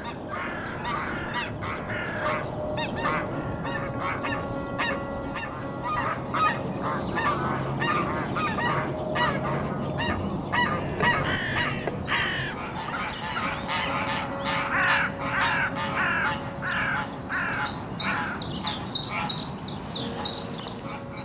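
Geese honking in a long run of repeated calls, mixed with other bird calls. Near the end a songbird adds a quick series of high, falling chirps.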